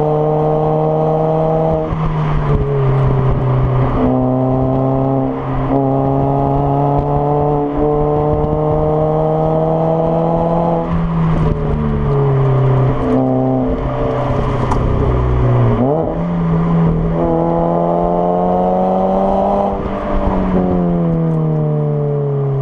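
Hyundai Elantra (Avante AD) 1.6 gasoline four-cylinder engine heard through a JSR custom dual exhaust, running at high revs. The exhaust note climbs slowly in pitch for several seconds, then drops abruptly, and this repeats several times, with a deeper dip about two-thirds of the way through.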